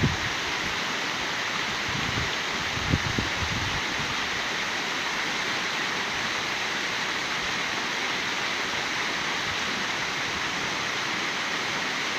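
Bigăr waterfall: a steady rush of falling water, with a few brief low bumps about three seconds in.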